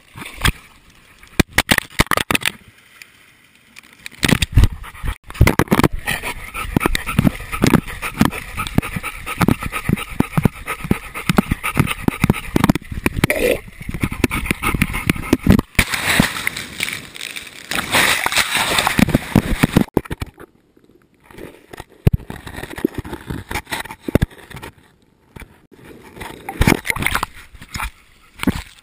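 Sea water sloshing and splashing against a chest-mounted GoPro housing as a dog wades and swims in the shallows, with many irregular knocks and bumps on the housing. There are a couple of short lulls in the second half.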